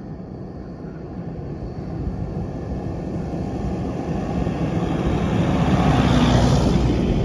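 Toyota Prado four-wheel drive towing a camper trailer drives up a sandy track and passes close by. Its engine and tyres grow steadily louder, peaking about six seconds in.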